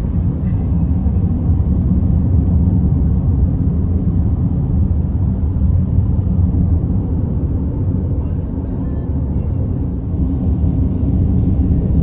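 Steady low road and engine rumble heard inside a moving car's cabin.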